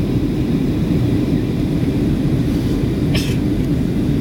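Steady low rumble inside the cabin of a Boeing 737-700 on approach: the noise of its CFM56-7B engines and the airflow over the fuselage. A brief sharp rustle or click cuts in about three seconds in.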